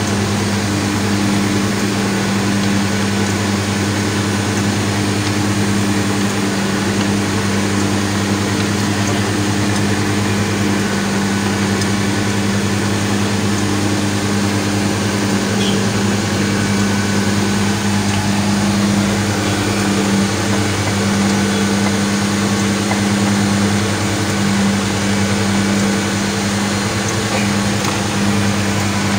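An engine idling steadily, a low, even hum that does not change.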